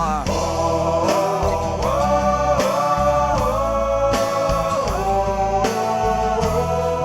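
Background music: a rock-style song with a held, sliding melody line over a steady bass.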